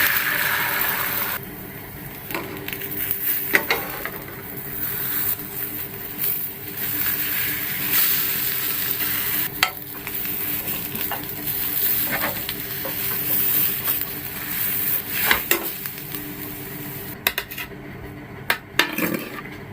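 Egg frying and sizzling in a pan, louder for the first second or so. A spatula scrapes and taps against the pan every few seconds.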